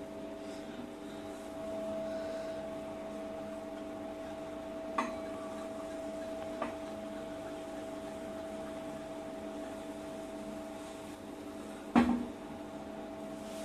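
Steady hum with several fixed tones. Over it, a glass bottle and wine glass are handled: a light clink about five seconds in, another a moment later, and a louder knock near the end as the bottle is set down.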